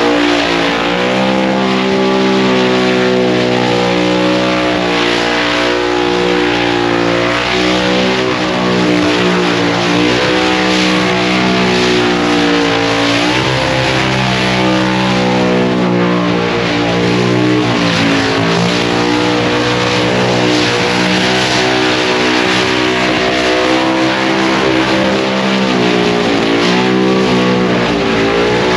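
Car engine held at high revs during a burnout, dipping and climbing back a few times as the throttle is eased and reapplied, over a steady hiss of spinning tyres.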